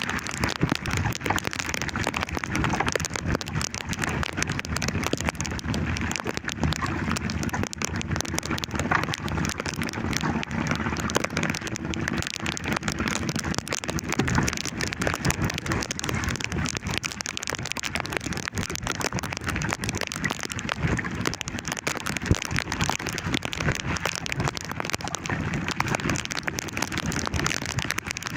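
Heavy rain falling steadily, a dense hiss of countless drops with many small hits close by.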